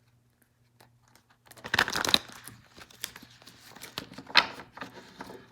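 Tarot cards being handled: irregular crinkly rustling that starts about a second and a half in, with a sharp snap about four seconds in.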